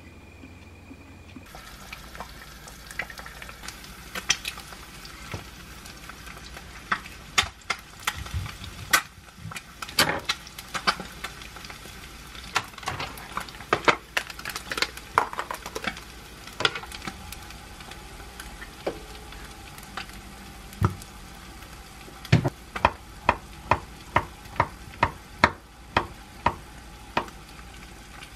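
Kitchen knife and utensils clicking and knocking on a wooden cutting board as an avocado half is handled and sliced, ending in a run of quick, evenly spaced knife taps, about two to three a second.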